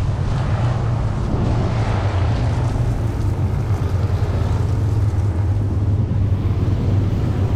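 An engine running steadily with an even low hum, with wind on the microphone.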